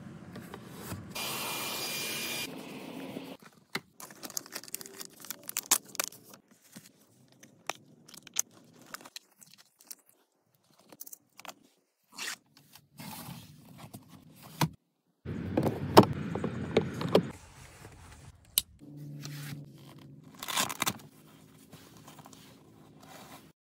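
Handling sounds from fitting and filling car organizers: plastic and fabric scraping and rubbing, with many short clicks and knocks. The loudest stretch of rubbing comes about two-thirds of the way through.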